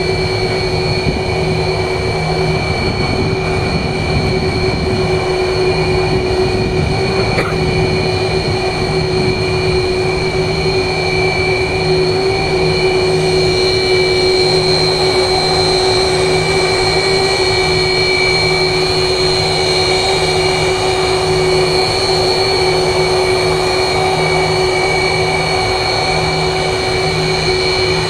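Sukhoi Su-30 fighter's twin jet engines running steadily, a high turbine whine over a low rumble, swelling a little partway through.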